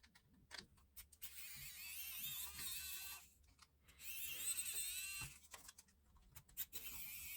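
Small electric screwdriver running faintly in two spells of about two seconds each, with a wavering high whine and a few clicks, as it backs out the screws holding the camera's casing.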